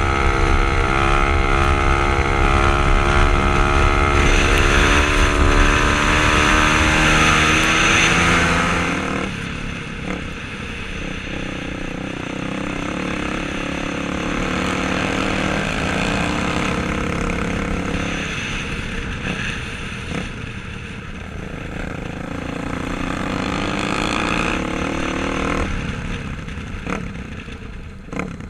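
Kawasaki dirt bike engine running hard at high revs with a steady pitch for about the first nine seconds. It then drops suddenly to quieter, lower running that rises and falls, easing off near the end.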